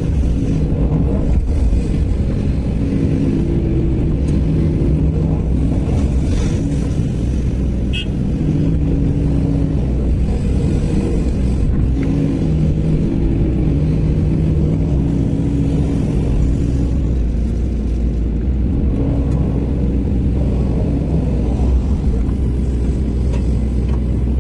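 Sany SY215C excavator's diesel engine running continuously under work, with a higher engine note coming in and dropping away every few seconds as the hydraulics take load.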